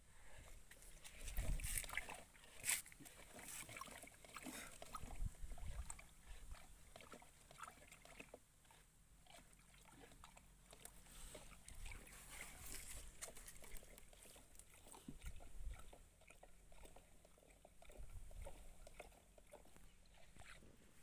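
A stick stirring a thick pesticide slurry in a plastic tub: faint sloshing and scraping with irregular small knocks, a few louder knocks about two seconds in.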